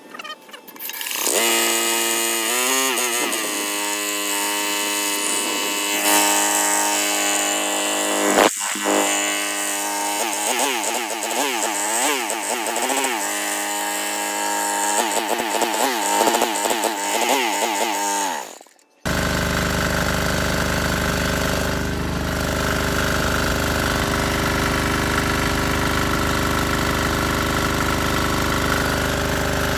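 Electric drill whining as it spins over a small single-cylinder air-cooled diesel engine, its pitch rising and wavering as it turns the engine against compression. About two-thirds in it cuts off suddenly and the diesel is heard running steadily on its own, on a fuel mix that is mostly vegetable oil.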